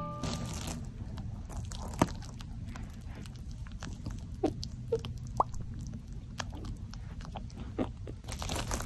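A lop-eared rabbit eating raspberries, heard close up: a quick, irregular run of soft chewing clicks and crunches, with a few sharper ticks.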